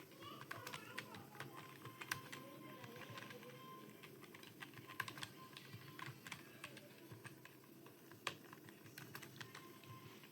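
Computer keyboard keys being typed on in a steady, irregular stream of clicks, several a second, with a few louder strikes.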